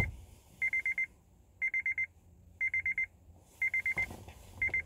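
Car's electronic warning chime beeping in groups of four quick high beeps, about one group a second.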